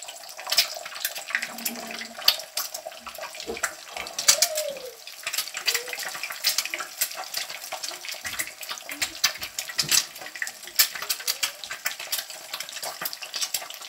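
Egg frying in hot oil in a pan: steady sizzling with frequent sharp crackles and pops of spattering oil.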